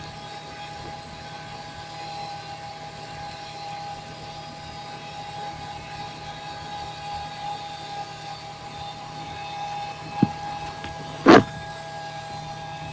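Steady electrical whine and hum of powered aircraft cockpit equipment, several fixed tones over a low hum. Two sharp knocks near the end, the second louder.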